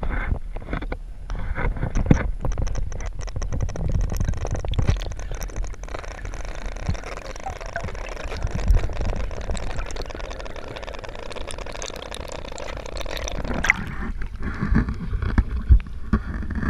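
Underwater sound picked up through a camera housing: a dense crackle of clicks and knocks over a rushing water hiss. About 14 seconds in it gives way to water lapping and sloshing at the surface.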